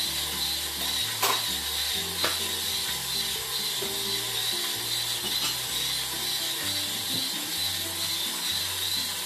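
Electric Starseeker Edge coffee grinder with titanium-coated burrs grinding espresso beans at a very fine setting: a steady grinding hiss with a few sharp clicks in the first couple of seconds. The fine setting makes the grind run long. Soft background music with low notes plays underneath.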